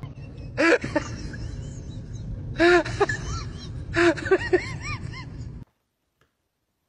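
A cat meowing in three short bouts of rising-and-falling calls, the last a quick run of several, over a steady low rumble. The sound cuts off suddenly near the end.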